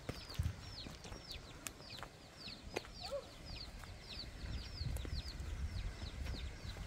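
Bird chirping over and over: short high notes that each fall in pitch, about three a second, with occasional footsteps on loose stones.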